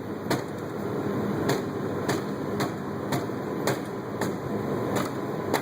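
Rubber mallet striking the cap on a fire engine's front intake to knock it loose, about two blows a second, over the steady drone of the engine running.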